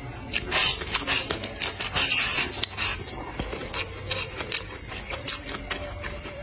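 Close-miked chewing of stir-fried vegetables: irregular crisp crunches and wet mouth clicks, with a longer noisy burst about two seconds in.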